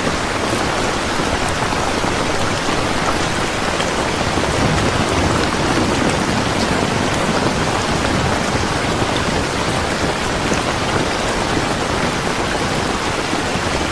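Steady rain falling, an even, unbroken hiss of many drops on a surface.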